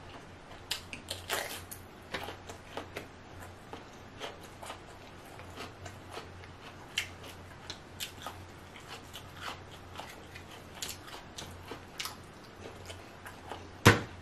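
Close-up eating sounds: crunchy bites and chewing, with king crab leg shell being broken and its meat pulled out, in many small clicks and crackles. One sharp, louder snap comes near the end.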